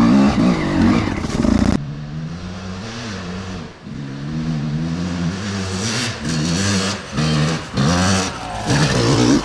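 Enduro motorcycle engine revving hard, its pitch rising and falling as the throttle is worked. About two seconds in the sound drops abruptly to a lower, quieter running, followed by several short throttle bursts near the end.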